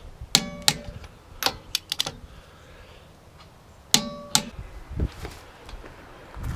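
Click-type torque wrench set to 75 ft-lb clicking as it reaches torque on a wheel's lug nuts, which means each nut is tightened to spec. Sharp metallic clicks with a brief ring come in a pair about a second in and another pair about four seconds in, with lighter clicks and knocks between.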